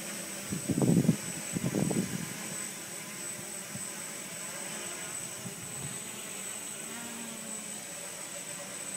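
Multirotor drone hovering, its motors and propellers giving a steady buzzing hiss with a thin high whine. In the first two seconds a few loud, low, rumbling bursts rise over it.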